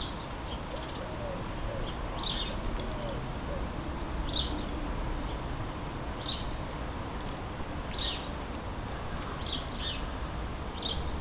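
Birds chirping, short high calls every second or two, with a low cooing repeated a few times in the first few seconds.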